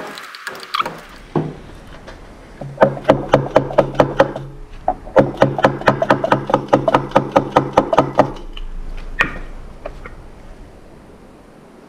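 Rapid, even taps of a soft-faced mallet on the lead-screw end bracket of a Schaublin 53 milling table, about five a second in two runs, with one last single knock near the end, knocking the bracket loose from the table end.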